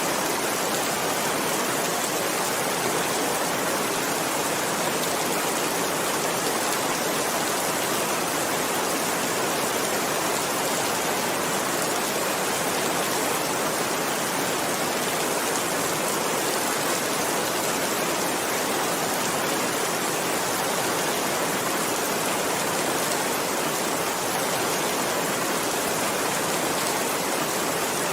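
Steady rain falling, an even, unbroken hiss that does not change.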